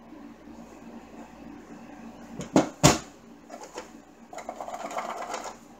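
A small wooden frame being handled: two sharp knocks about a third of a second apart, then a longer stretch of light scraping and rattling as it is turned over.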